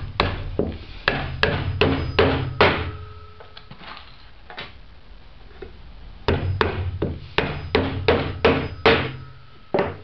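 Claw hammer driving nails into the wooden boards of a birdhouse: two runs of sharp blows, a few a second, with a pause of about three seconds between them.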